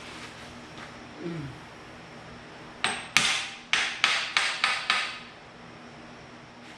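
Hammer blows on metal, about eight sharp strikes in quick succession starting about three seconds in, as pinned coupler hardware is tapped into place.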